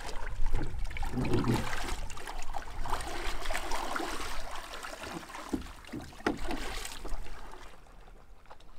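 A double-bladed paddle dipping and splashing in the water as a surf ski is paddled, with a few sharper strokes through the middle; quieter near the end.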